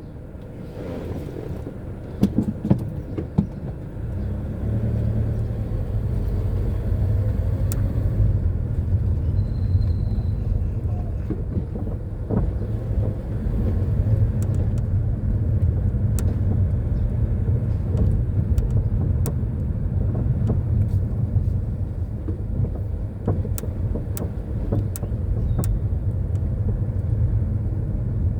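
Low road and engine rumble inside a 2016 Mazda 3's cabin while driving, rising about four seconds in, with irregular sharp clicks or ticks scattered through it: the rattle from the passenger-side corner of the dashboard near the speaker.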